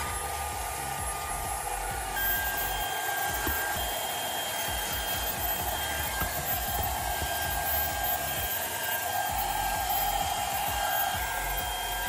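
YONNDER E1 cordless handheld vacuum running steadily as its nozzle sucks dirt off a rubber car floor mat, its motor giving a steady whine that steps up in pitch about two seconds in.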